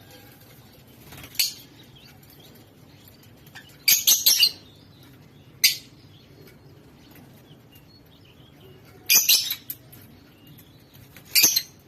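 Lovebirds giving short, high-pitched chirps in scattered bursts, about five in all, some as quick clusters of calls.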